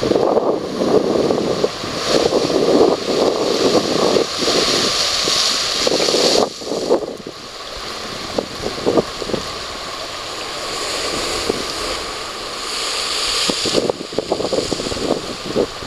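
Surf breaking and washing over a rocky shoreline, a rushing hiss that swells and eases, softer for several seconds in the middle. Wind buffets the microphone throughout.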